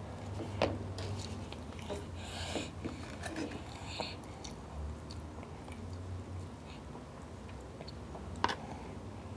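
A toddler chewing a mouthful of broccoli, with a fork clicking against the plate a few times, sharpest about half a second in and near the end.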